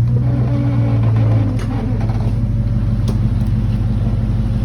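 Chevrolet Silverado pickup's engine running as the truck drives in four-wheel-drive low, a steady low drone that is a little louder for the first second and a half.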